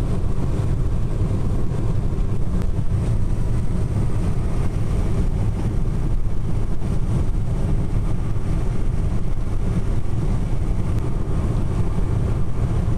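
A car driving along a highway: a steady, low rumble of road and engine noise.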